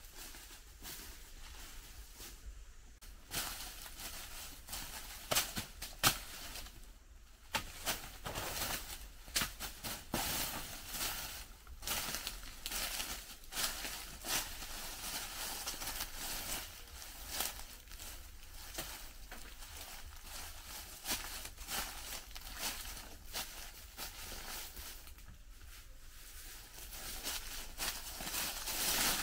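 Irregular rustling and crackling of plant material being handled, with scattered sharp clicks and snaps, the loudest about six seconds in.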